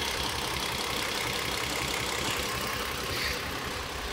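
Toyota Avalon engine idling steadily, an engine being diagnosed for a misfire.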